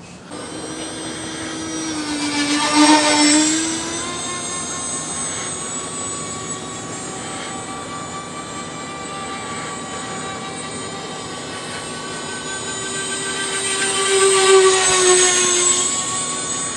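Electric ducted fans of a foam RC A-10 Warthog model jet whining in flight. The whine swells loudly twice, about three seconds in and again near the end, as the plane makes close passes.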